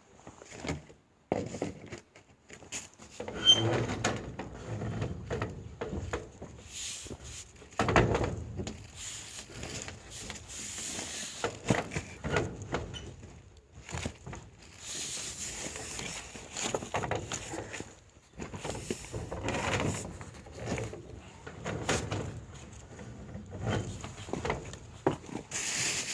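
Irregular knocks, scrapes and rustling of hands-on work, as the vertical chimney pipe is fitted back onto its base.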